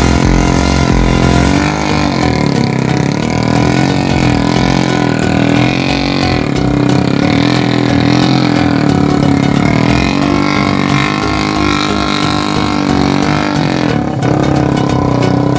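Three-wheeled motorcycle's Yamaha MX single-cylinder four-stroke engine running steadily, its pitch rising and falling gently as the revs change.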